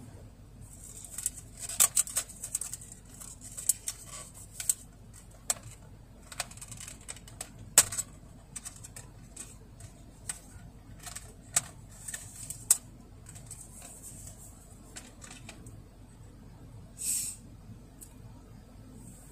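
Clear plastic food container being handled and opened: scattered sharp crackles and clicks of thin plastic, with a short rustling hiss near the end.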